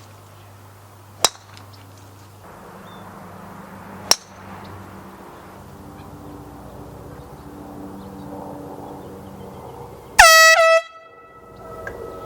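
Handheld air horn blasting once, very loud, for about half a second near the end, its pitch rising sharply as it starts. Before it, two sharp cracks about three seconds apart.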